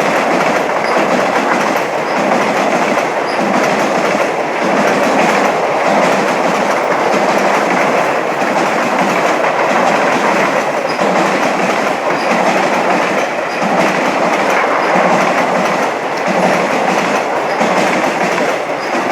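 Express passenger train passing at speed, about 90 km/h: a steady loud rush of wheel and rail noise with a rhythmic clickety-clack over the rail joints.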